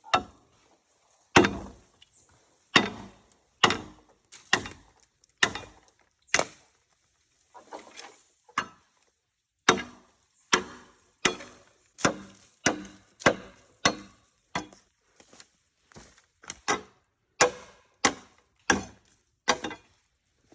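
Bamboo being chopped with a blade: some two dozen sharp strikes, about one a second at first, then quicker.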